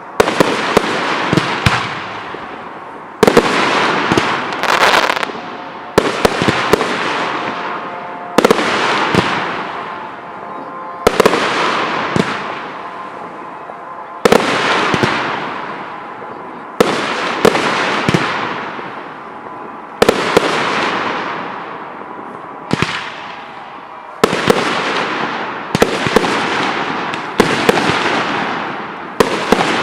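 Fireworks display: aerial shells bursting with sharp bangs every two to three seconds, a few in quick pairs, each bang followed by a noisy tail that fades over a second or two.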